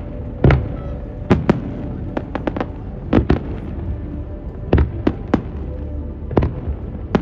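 Fireworks display: aerial shells bursting in sharp bangs at irregular intervals, about a dozen in all, several coming in quick pairs.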